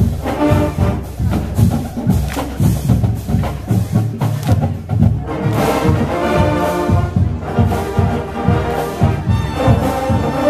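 College marching band playing live: a steady, driving drumline beat under brass, the brass growing louder and fuller about halfway through.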